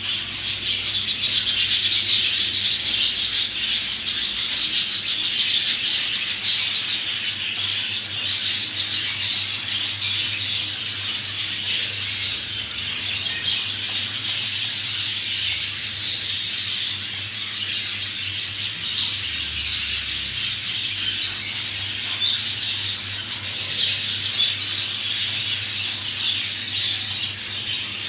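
Budgerigars chattering and chirping without a break, many high calls overlapping.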